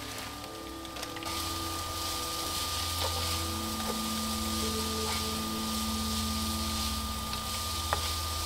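Vegetables sizzling in oil in a nonstick frying pan as they are stirred with a spatula, with a few light spatula taps. The sizzle gets louder about a second in.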